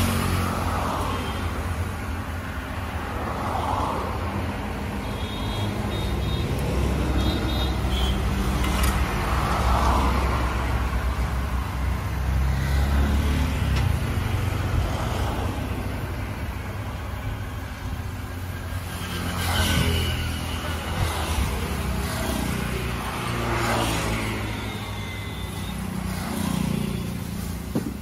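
Road traffic passing close by: a steady low rumble with vehicles going by one after another every few seconds, each swelling and fading.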